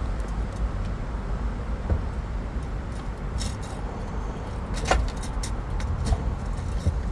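A few light clicks and clinks of small fuel pump assembly parts being handled and fitted, the loudest about five seconds in, over a steady low rumble.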